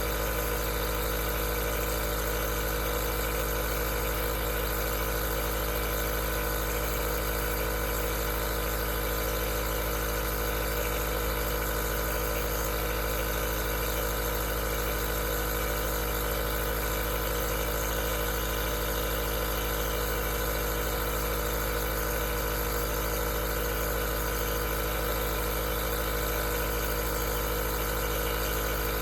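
Aerosol nebulizer's compressor running with a steady, unchanging hum and hiss.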